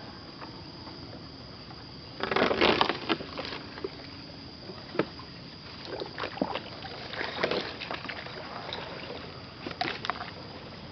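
Wooden canoe being paddled: irregular paddle splashes and knocks against the hull, the loudest cluster a little over two seconds in, over a faint steady high whine.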